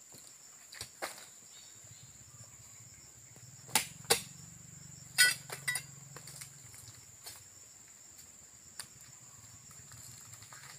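Scattered sharp knocks and clacks as oil palm fruit bunches are loaded into a net hanging from a steelyard weighing scale. The loudest comes about five seconds in, with a short ring. Behind them a steady high-pitched insect drone.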